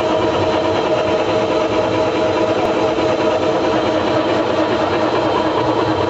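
Snack-chip production line machinery running: a steady mechanical hum with several held tones and no change in level.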